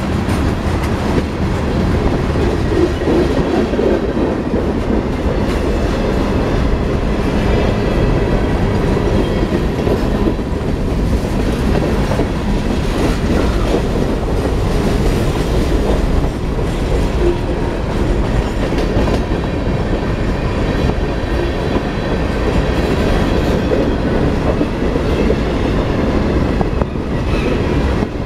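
Freight train cars (tank cars, coal gondolas and covered hoppers) rolling past at close range: steel wheels on the rails making a steady, loud noise.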